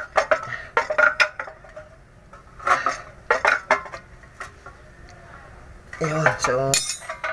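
Metal clinks and knocks of a trailer air-brake relay valve and its threaded fittings being handled and knocked against a steel surface, a quick string of sharp clicks that is busiest in the first few seconds.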